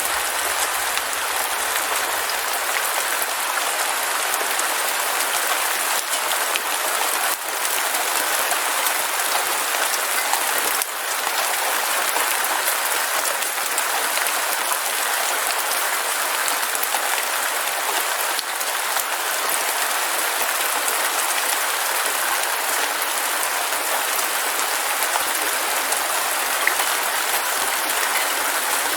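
Heavy rain falling steadily, a dense, even patter of drops with a few brief dips in level.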